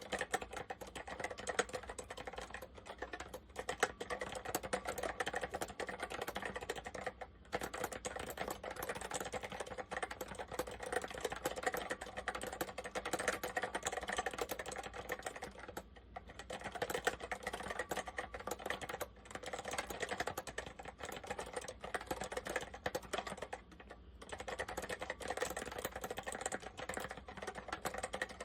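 Continuous fast typing on an Apple M0110A Macintosh Plus keyboard with Mitsumi Standard Mechanical switches, a dense run of key clicks broken by brief pauses a few times.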